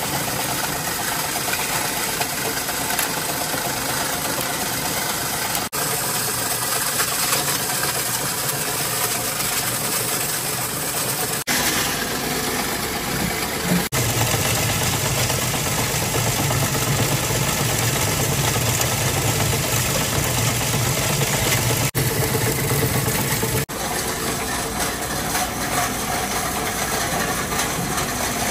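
Plastic granulator grinding red plastic runner scrap into granules, a steady, dense machine noise. The sound changes in character a few times, with a deeper hum for about ten seconds in the middle.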